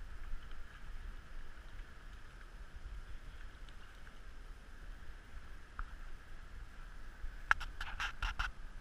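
Steady rush of creek water with low wind rumble on the microphone. Near the end comes a quick run of about five sharp clicks.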